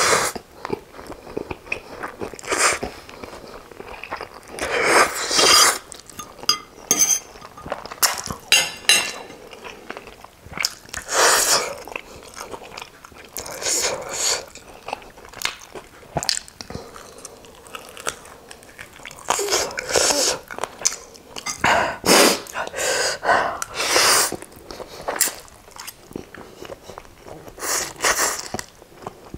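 Close-up eating sounds: instant noodles being slurped from a fork and chewed, with bites of fried chicken wing, in irregular bursts with small wet clicks between them.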